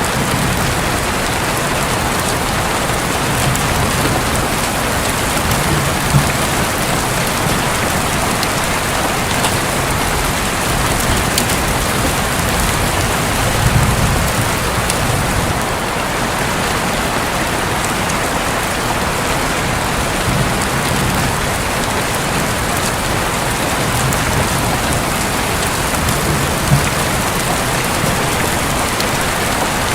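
Rain falling steadily on a roof, with low rumbles of distant thunder swelling up several times.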